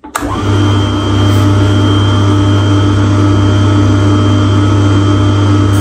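Tormek T-2 Pro knife sharpener's 120 W electric motor switched on, starting abruptly and running with a loud, steady hum.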